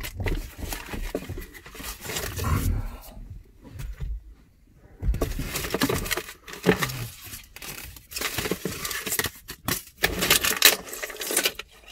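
Hands rummaging in a car's plastic glove box and taking things out of it: irregular rustling and crinkling with light knocks of objects against the plastic, easing off for a second or two about four seconds in.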